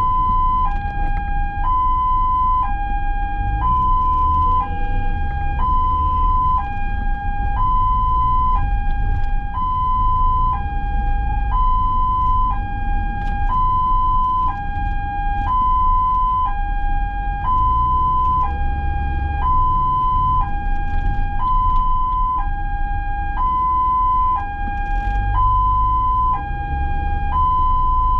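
Ambulance two-tone hi-lo siren, switching steadily between a higher and a lower tone about every 0.8 seconds, over the low rumble of the vehicle's engine and road noise.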